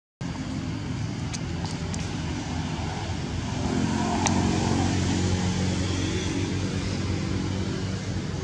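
A motor vehicle's engine running with a steady low hum that grows louder about four seconds in, with a few sharp clicks in the first half.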